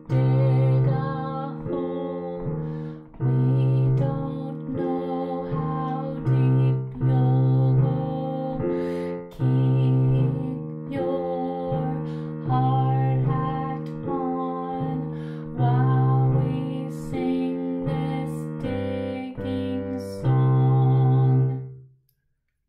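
Piano playing the teacher's accompaniment part of a beginner duet: chords over a repeated low note in a steady beat. It stops about a second before the end.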